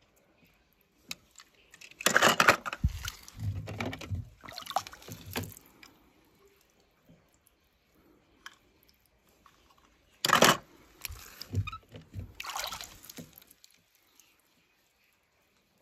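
Water splashing and sloshing in a shallow plastic tub as small die-cast toy cars are handled in it, in two spells about eight seconds apart, each starting suddenly.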